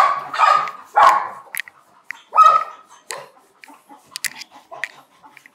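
A dog barking four times in the first half, with short gaps between the barks, followed by faint small clicks.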